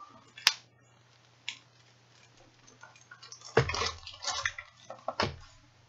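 Hands handling a plastic bag and the contents of a cardboard toy box: a sharp click about half a second in, then knocks and crinkling in the second half.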